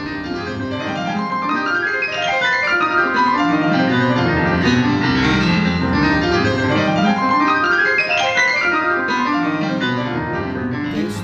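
Roland digital piano played four hands, with fast runs of notes sweeping up and down the keyboard over chords in the lower register.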